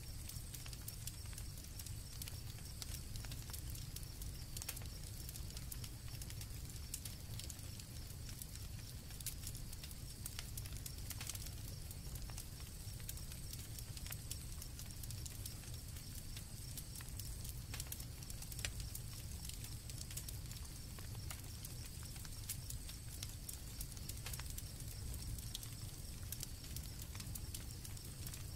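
Campfire crackling, with scattered sharp pops over a low steady rumble. Crickets chirp steadily underneath.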